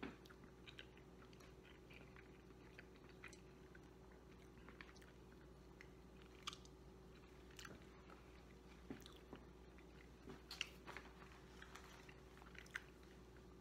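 Faint chewing of a mouthful of burrito casserole: soft, irregular clicks of the mouth and teeth over a low steady room hum.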